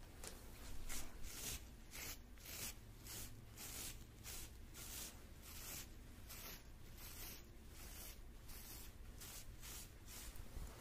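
Rhythmic scratchy brushing strokes close to the microphone, about three a second, an ASMR trigger sound.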